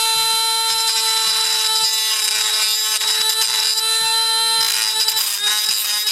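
Handheld high-speed rotary tool running at a steady high whine, dipping briefly in pitch about five seconds in as it is loaded against the work.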